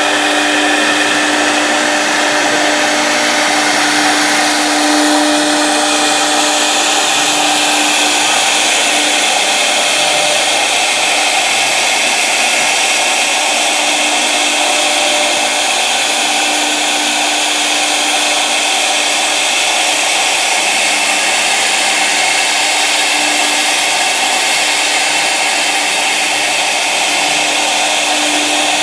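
A 1325 CNC router running: a steady, loud machine whine and rush with a steady hum underneath.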